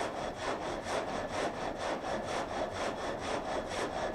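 A saw cutting through wood in steady, even strokes, about four a second.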